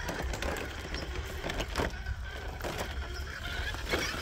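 Traxxas TRX-4 1/10-scale RC crawler's electric motor and geared drivetrain whining faintly as it crawls slowly over loose rocks, with a few clicks and knocks of stone under the tyres.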